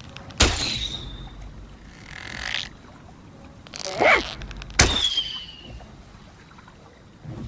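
Bow and arrow sound effect: two sharp shots about four and a half seconds apart, each with a short falling ring after it. Between them come a rising rush and a brief creaking squeak.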